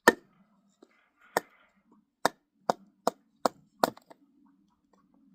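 Kindling being chopped: seven sharp chops into wood, coming faster after the first few.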